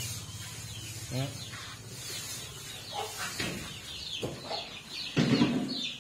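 Chickens clucking, with short, quick high calls throughout and one louder, longer call about five seconds in.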